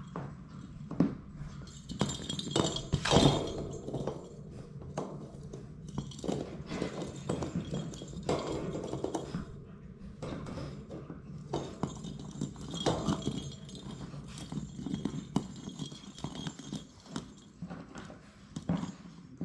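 A Labrador retriever puppy moving right against the microphone: scattered knocks, thumps and rustling on a fleece blanket, uneven in loudness, over a steady low hum.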